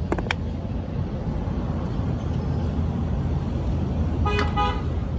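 Steady low rumble of road traffic, with a vehicle horn giving a short double beep about four seconds in.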